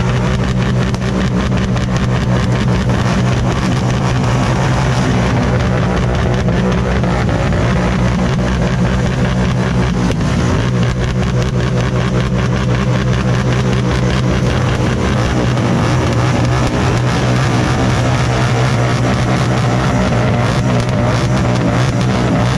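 A motor vehicle engine running steadily at an even speed, with a fast, dense pulsing.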